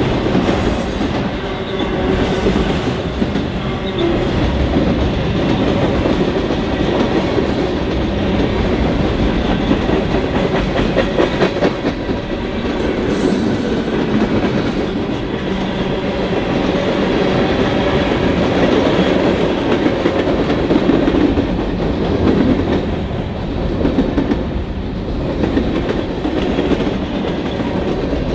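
Freight cars rolling by close, a steady loud rumble with the clickety-clack of wheels over rail joints.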